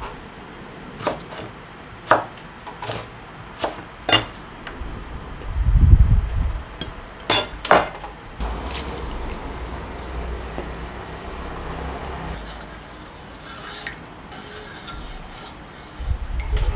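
Chef's knife chopping lettuce stalks on a wooden cutting board: single chops about once a second, then a heavier thud and two sharp knocks. Near the end a wooden spoon stirs salted water boiling in a steel pan.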